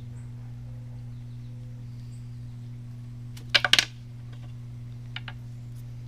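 A quick cluster of four or five sharp clicks and crinkles a little past halfway, then two faint clicks, from handling a 1.5-volt battery shorted with aluminium foil and held with scissors. A steady low hum runs underneath.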